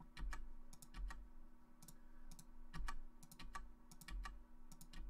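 Computer mouse clicks and keyboard key presses: an irregular run of short, light clicks, a few a second.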